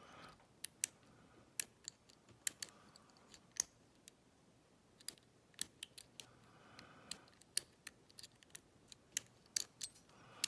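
Lock pick working the pins of an Abus Buffo euro cylinder under tension: irregular sharp, light metallic clicks, one to three a second, as the pins are lifted from the back of the lock.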